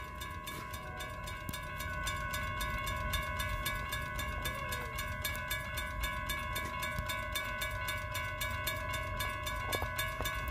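Railroad crossing warning bell ringing steadily with rapid, evenly spaced strikes, about three to four a second, as the crossing signals are activated for an approaching train.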